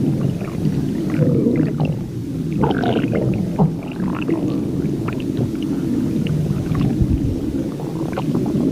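A person's stomach growling: a continuous low rumble with short, irregular gurgles and squeaky rising and falling sounds over it.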